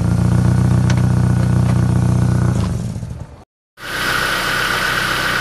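Ford Ka car engine running steadily, fading out about three seconds in; after a brief break a different steady engine hum with a thin high whine starts.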